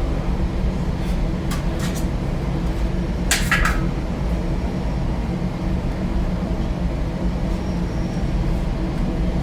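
A steady low mechanical drone, like a running engine or machine, with a few brief clicks, the loudest a quick cluster about three and a half seconds in.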